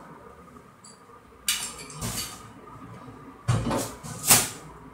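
TV packaging being handled, cardboard and polystyrene foam rubbing and knocking: three sharp scraping noises, the loudest near the end.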